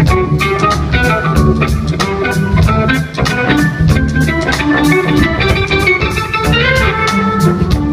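Live funk-rock band playing a jam, with keyboard and bass over a steady drum beat and guitar.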